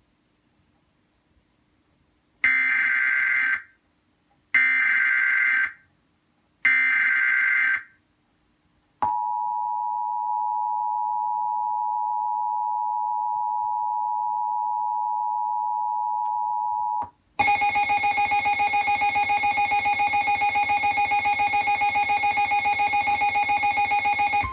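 Emergency Alert System tones: three short bursts of SAME header data, then the steady two-tone EAS attention signal for about eight seconds. Then a Midland WR-120 weather radio's alarm blares as a loud, rapidly pulsing tone. The radio's alarm is leaking into the station's relayed alert audio through a fault.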